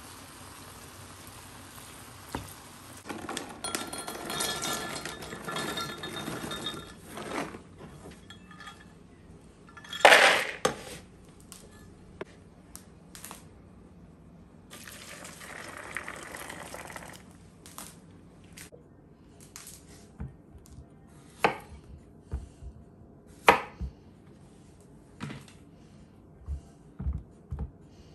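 Kitchen cooking sounds: a few seconds of stirring and scraping ground meat in a frying pan with a wooden spatula, then one loud clatter about ten seconds in. Hot water is poured from a saucepan onto cashews in a plastic bowl, followed by scattered clinks and knocks of dishes and utensils. Near the end a knife taps on a wooden cutting board.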